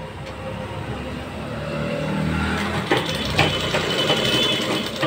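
Sewing machine running, stitching down the pleats of a salwar onto its waistband. It gets louder about two seconds in, with a few sharp clicks in the second half.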